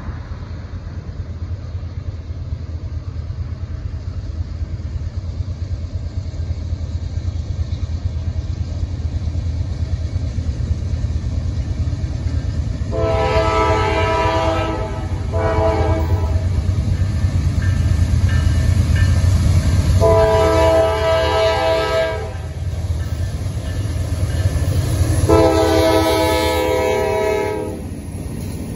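Nathan K5LLA five-chime air horn on a GE Dash 9-40CW locomotive sounding four blasts, a long and a short close together and then two long ones, over the low rumble of the approaching freight train's diesel engines, which grows louder as the train draws near.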